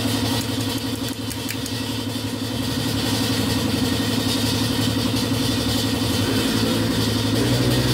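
An engine idling steadily, its note shifting slightly about six seconds in.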